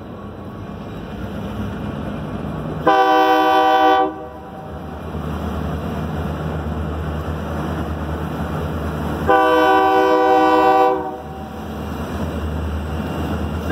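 Diesel locomotive's air horn sounding two long blasts of several tones together, about six seconds apart, for the grade crossing ahead, with a third blast starting at the very end. Between blasts the locomotive's low rumble grows louder as the train approaches.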